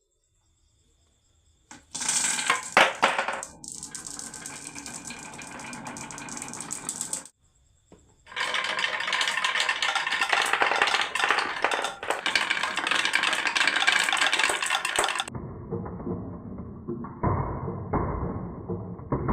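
Marbles rolling and clattering down a wooden marble run, a dense rattle of many clicks and knocks in two long runs with a short pause between. Near the end the sound turns duller and muffled.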